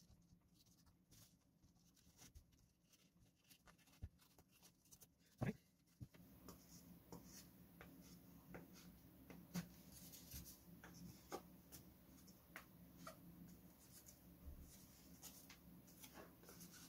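Faint rustling and light scratchy ticks of covering material being handled and smoothed onto a model plane's balsa fin. A faint low hum sets in about six seconds in.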